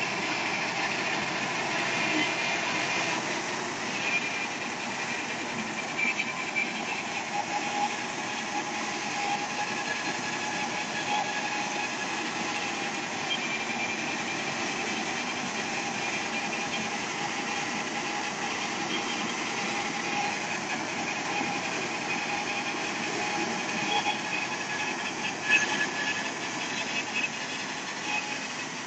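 Two-row corn harvester running: a steady engine and machinery drone with high whining tones through it, and a few sharp clatters about twenty-five seconds in.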